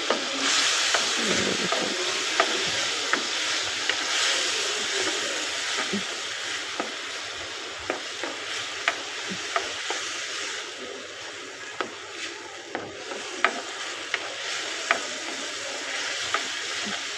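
Freshly added chopped tomatoes and onions sizzling in hot oil in a frying pan, with a steady hiss. A spoon stirs them, scraping and tapping against the pan in short sharp ticks every second or so.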